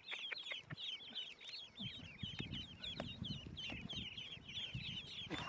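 Many ducklings peeping together in a continuous stream of rapid, high chirps. From about two seconds in there is also low rustling and knocking as birds are handled in the basket.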